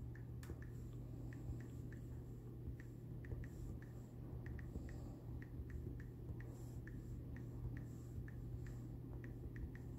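Faint, irregular ticks of typing on an iPad's on-screen keyboard, about three taps a second, over a low steady hum.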